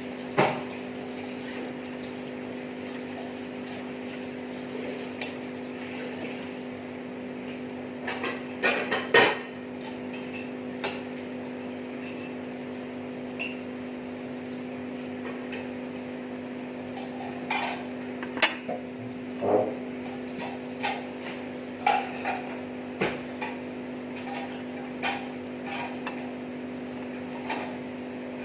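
Cutlery clinking and knocking against a plate while eating: scattered single clinks, a quick cluster about a third of the way in and more often in the second half, over a steady low hum.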